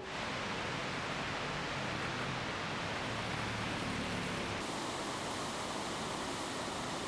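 Steady rushing noise of a fast mountain river, with a faint low hum for a couple of seconds in the middle.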